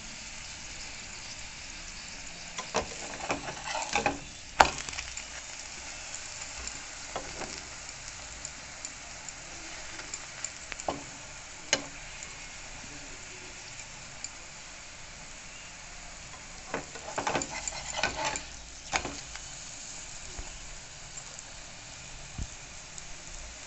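Paratha frying in oil in a nonstick pan, a steady sizzle. A metal spatula knocks and scrapes against the pan now and then, loudest about four and a half seconds in, with a cluster of scrapes around the seventeen to nineteen second mark.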